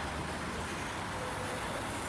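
Diesel engine of an articulated lorry running steadily at low revs, a low rumble.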